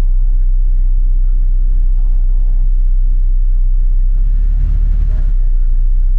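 Steady low rumble of a bus in motion, heard from inside the passenger cabin.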